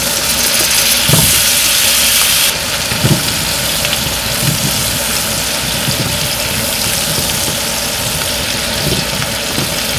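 Brussels sprouts sizzling in hot fat in a non-stick frying pan. The sizzle is loudest for the first couple of seconds as they land in the pan, then settles to a steady sizzle with a few soft knocks as a silicone spatula stirs them.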